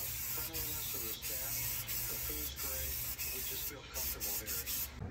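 Aerosol spray-paint can hissing as paint is sprayed onto sheet metal, with brief breaks between passes. Near the end it comes in several short spurts, then stops.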